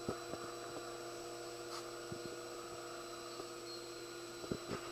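Steady room hum with a few faint soft knocks near the start and near the end.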